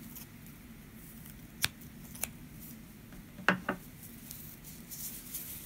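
Scissors snipping the yarn tail after fastening off crochet: a few short, sharp snips, the last two close together about three and a half seconds in.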